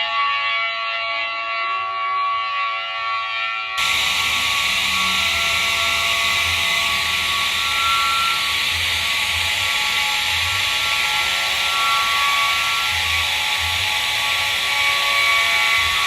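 Several steady siren-like alarm tones, one gliding upward near the start; about four seconds in, a loud hiss of noise suddenly cuts in over them, with irregular low rumbles underneath.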